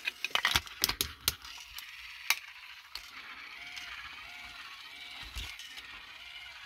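Small battery-driven motor and plastic gearbox of a TOMY Trackmaster Toby toy engine running very quietly, with a new cog fitted so it no longer skips a gear. A few sharp clicks come in the first two seconds or so, then a faint steady running noise.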